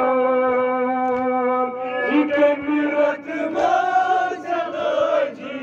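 Male noha reciter chanting a Muharram lament into a handheld microphone: he holds one long steady note for nearly two seconds, then goes on with shorter sung phrases.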